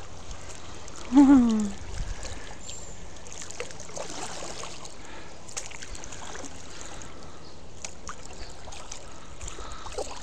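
Water lapping and trickling around a kayak on a moving river, with small scattered splashes. About a second in, a short voice-like sound falling in pitch stands out as the loudest thing.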